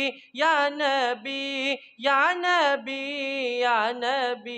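A boy's solo voice singing a naat unaccompanied, drawn out in two long phrases with a short break near the middle, the pitch sliding and wavering through held notes.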